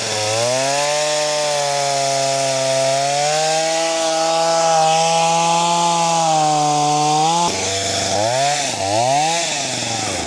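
Chainsaw running at high revs while it makes the last cut through a log, pitch holding fairly steady. About seven and a half seconds in, the revs drop and rise again twice as the throttle is let off and squeezed.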